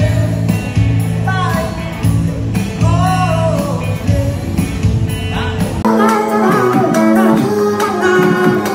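A song with a singing voice over guitar; about six seconds in the deep bass drops away and the accompaniment changes.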